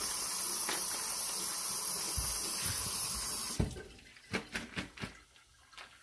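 Kitchen tap running into a stainless-steel sink, water splashing over hands and plastic wrap held under the stream. The tap is shut off about three and a half seconds in, and a few light knocks and clatters follow.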